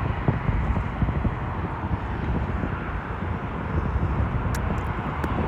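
Steady rumble of a jet airliner passing on landing approach, with a few faint clicks near the end.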